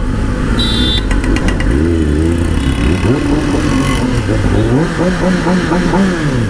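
Kawasaki ZX-10R's inline-four engine being ridden, its revs rising and falling in pitch several times as the throttle is opened and eased. A short high tone and a few quick clicks come about a second in.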